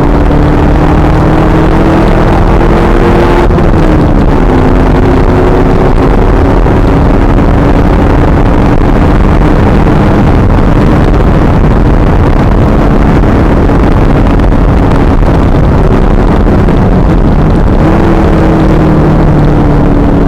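The 2000 Pontiac Trans Am Firehawk's 5.7-litre LS1 V8 running hard on track, recorded loud and distorted. Its note drops at the start and again about four seconds in, holds nearly steady for a long stretch, then climbs near the end.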